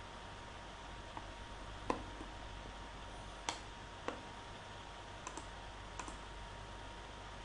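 Computer mouse clicking about eight times at irregular intervals, some as quick pairs, over a steady low hiss.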